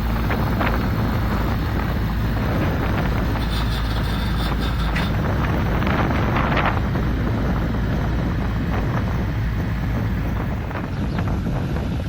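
Mini crawler bulldozer's diesel engine running steadily under load, with scattered clanks and squeaks from the machine a few seconds in and again near the end.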